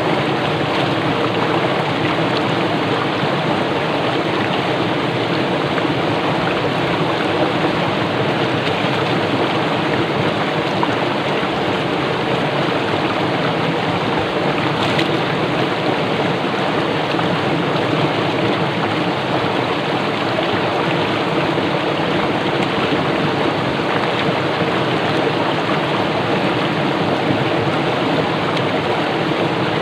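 Fast-flowing stream rushing and bubbling as its water strikes rocks, a steady, even splashing.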